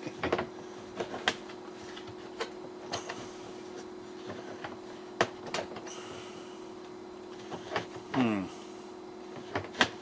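The plastic door of a Keter tumbler composter being worked loose and handled: scattered clicks and knocks of hard plastic, several seconds apart.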